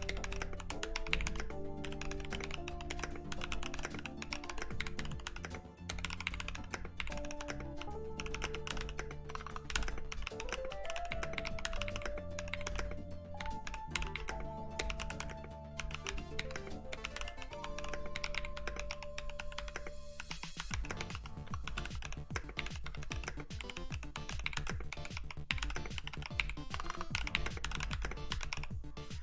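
Fast continuous typing on a clear NK65 65% mechanical keyboard with lubed 62g Boba U4T tactile switches and clipped, lubed stabilizers: a dense run of rapid keystrokes. Background music plays under it and stops about two-thirds of the way through.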